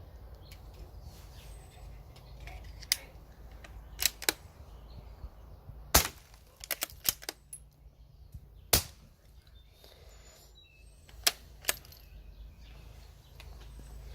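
Sharp metallic clicks and clacks of a CZ452 .22LR bolt-action rifle being handled and its bolt worked to clear a cycling problem. Scattered single clicks and a quick cluster come through, with two louder sharp cracks about three seconds apart.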